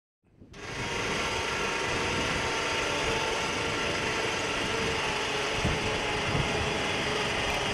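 Steady mechanical running noise from a machine, with a faint hum, fading in over the first half second and then holding level.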